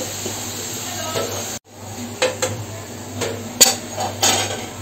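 A steel slotted spoon knocking and clinking against a frying pan and a steel plate while fried dough pieces are lifted out of hot oil, over a low steady sizzle. After a sudden break about a second and a half in come several sharp clicks and knocks, the loudest a little past halfway.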